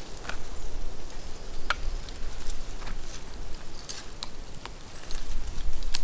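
Small wood cooking fire crackling, with scattered sharp pops over a low steady rumble.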